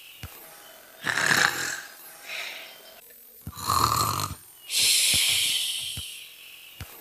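Imitated snoring in a repeating cycle. A rasping snore on the in-breath comes about a second in and a snort with a nasal tone around the middle, then a long hissing out-breath fades away.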